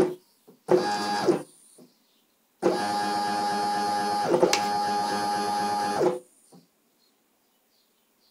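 Stepper motors of a homemade CNC pen plotter whining as the axes drive the pen across paper. There is a short move about a second in, then a longer steady run of about three and a half seconds with a brief change of tone halfway through, as the direction changes, before the motors stop.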